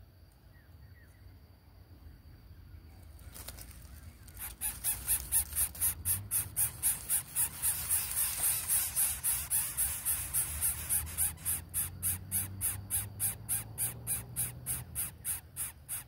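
Greater coucal nestlings begging in the nest: a rapid, raspy, hissing call repeated about four times a second. It starts a few seconds in and keeps up until the end.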